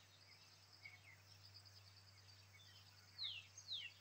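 Faint field ambience: a bird giving short whistled notes that fall in pitch, repeated every so often, with three louder ones about half a second apart near the end, over a steady high insect trill.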